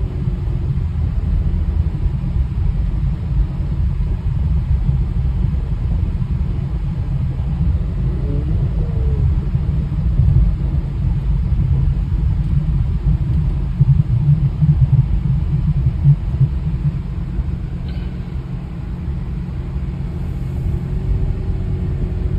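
Steady low rumble of a car running, heard from inside the cabin, its loudness wavering a little.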